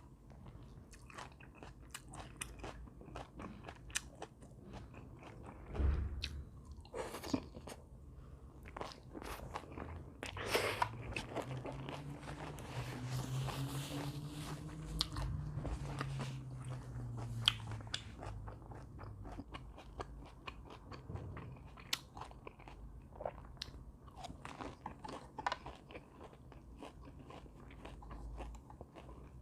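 A person chewing and crunching food close to the microphone, with many sharp little bites and clicks. Around the middle, a low hum in the voice runs for a few seconds.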